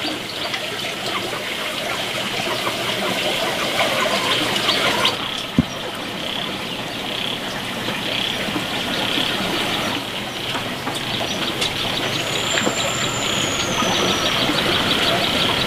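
Steady outdoor wash like running water, with small bird chirps and a thin, high whistled bird call that slides down in pitch near the end. A single sharp click sounds about a third of the way in.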